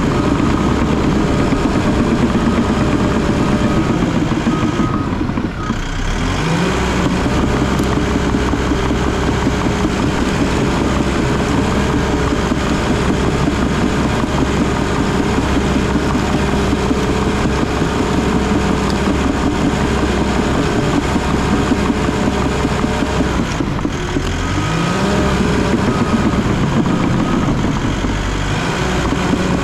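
Bulldozer's diesel engine working hard, heard from inside the cab as the machine pushes. Twice, about five seconds in and again about twenty-four seconds in, the engine dips and then rises back up in pitch.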